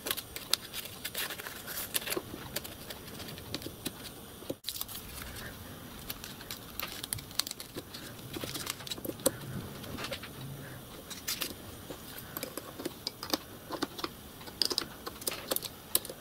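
Hands working strips of paper into the teeth of small metal change gears, with paper rustling and many light clicks and taps of metal as the gears are pushed into mesh. The paper sets the mesh clearance between the gear teeth.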